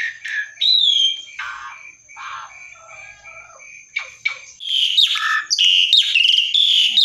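Caged Javan pied starling (jalak suren) singing a loud, varied song of whistled glides and rapid chattering notes. The song is quieter in the middle and denser again from about four and a half seconds in.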